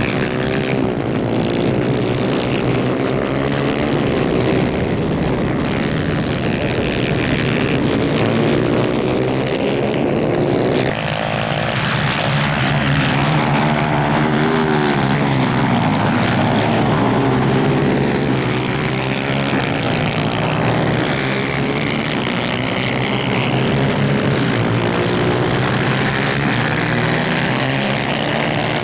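Several 250cc two-stroke superkart engines racing at high revs. Their pitches rise and fall as they overlap, without letup.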